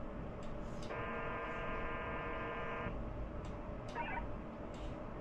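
VARA FM data signal from a Winlink session with a node, during a message download: a burst of about two seconds made of many evenly spaced steady tones, then a short garbled burst about a second later.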